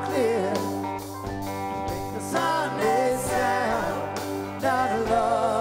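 A live rock band playing, with singing over electric guitar, keyboards and a steady low bass line.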